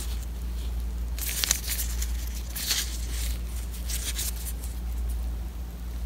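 Disposable plastic gloves crinkling and rustling in short bursts as gloved hands work a wire's spade connector onto a blower-motor run capacitor's terminal, over a steady low hum.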